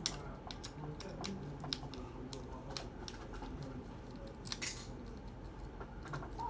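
Small irregular clicks and ticks of a screwdriver working a small screw out of a receipt printer's thermal head assembly, with light handling of small plastic and metal parts.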